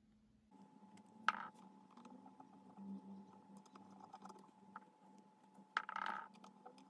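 Small handling clicks and light metal taps from a hex key and the lead screw with its brass nut as the nut's compression screws are tightened to take out play, with a sharper tap about a second in and a short scrape near the end. A faint steady hum runs underneath.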